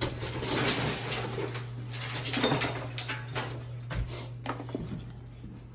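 Irregular knocks and scraping of hand tools against a bathtub and tiled walls during demolition, over a steady low hum.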